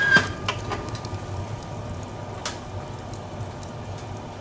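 Wood fire crackling in an open wood stove, with scattered sharp pops over a steady low hum. Right at the start, a metal clank with a brief ring from the stove door.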